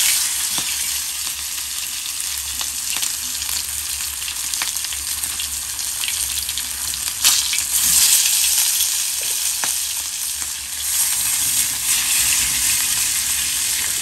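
Chicken pieces frying in hot sunflower oil on a flat iron pan: a steady sizzle with scattered crackles, and one louder pop about halfway through.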